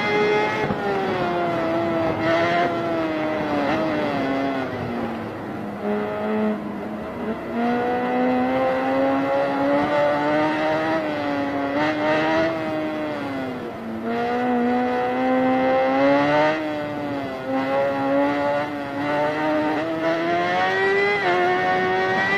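Big-bike motorcycle engine and exhaust running at high revs, the pitch sinking and climbing again as the throttle changes, dipping lowest about five seconds in and again around fourteen seconds in.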